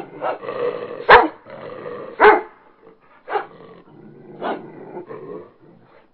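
Short, sharp shouts from the sideline, single calls about a second apart, the loudest near the start and the later ones quieter, over the murmur of a gym crowd.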